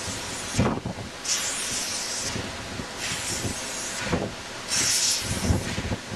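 Narrow-gauge steam locomotive moving slowly, giving off spells of steam hiss about a second long every second or two, with low chuffs between them.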